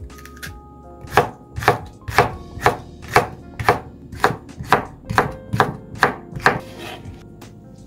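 A knife chopping on a cutting board: about a dozen even strokes at roughly two a second, starting about a second in and stopping near the end.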